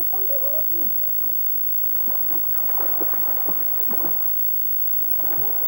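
Water splashing in a swimming pool as children play, a flurry of splashes starting about two seconds in and lasting about two seconds. A child's voice sounds briefly at the start, and a child's call swoops up and down near the end.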